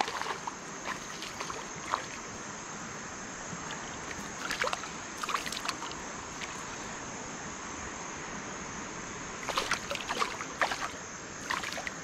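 A hooked largemouth bass splashing and thrashing at the water's surface as it is reeled in, in short bursts at the start, around the middle and again near the end, over a steady hiss of moving water.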